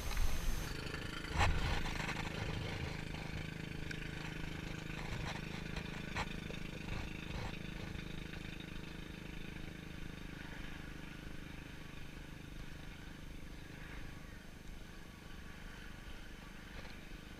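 A steady low mechanical hum that fades out about fourteen seconds in, with a single knock about a second and a half in and a couple of faint clicks later.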